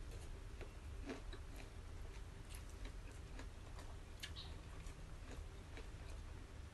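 Eating by hand at a meal: faint, scattered soft clicks and taps of fingers and food against china plates, with some chewing.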